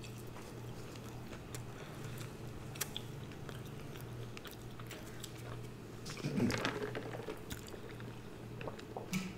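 A person chewing and biting food close to the microphone, with small wet clicks and a few crunches, a louder run of bites about six seconds in. A faint steady low hum underneath.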